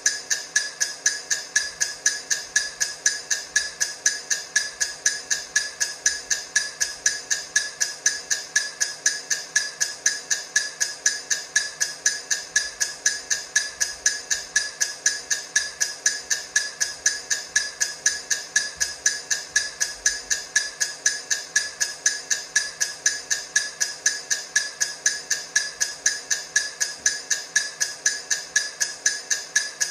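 Countdown timer ticking sound: a steady, fast run of sharp, evenly spaced ticks, several a second, with no change in pace or loudness.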